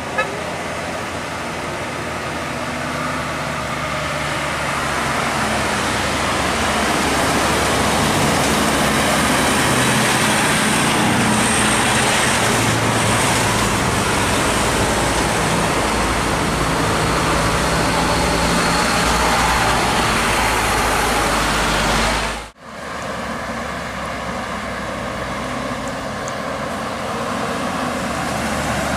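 Heavy road traffic passing close by, with engine and tyre noise. The rush builds over the first several seconds and holds steady. It drops out sharply for a moment a little past two-thirds through, then builds again.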